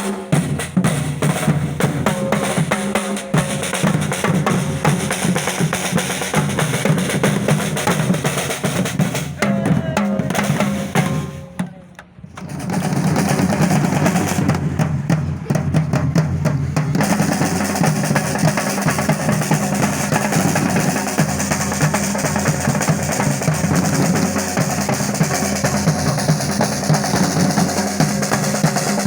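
Music driven by drums and percussion, with a dense, steady beat that breaks off briefly about twelve seconds in before carrying on.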